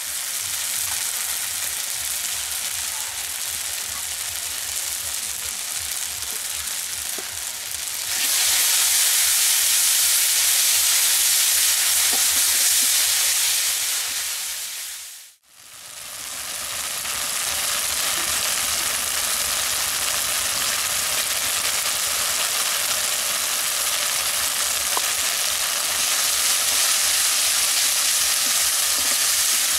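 Spice paste sizzling as it fries in mustard oil in an aluminium kadai, stirred with a metal spatula: a steady frying hiss. It gets louder about eight seconds in, cuts out briefly around the middle, then carries on.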